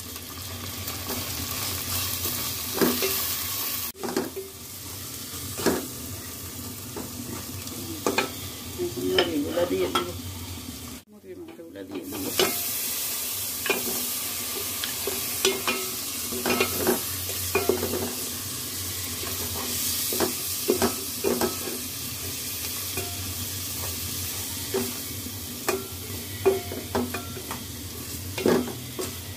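Onions, spices and raw chicken frying in an aluminium pot with a steady sizzle, while a slotted spatula scrapes and knocks against the pot as the mixture is stirred. The sound cuts out briefly about eleven seconds in.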